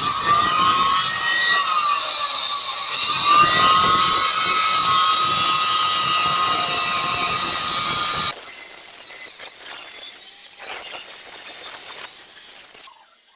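Handheld DCA electric marble cutter running and cutting a 45-degree miter into a black granite strip, a steady high whine that sags slightly as the blade bites. It stops abruptly about eight seconds in, and quieter handling sounds follow.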